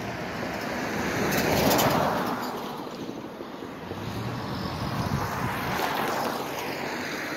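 Two cars driving past, each a swell of engine and tyre noise that rises and fades away: the louder one peaks about two seconds in, and the second, a sedan crossing the tracks, passes near the end.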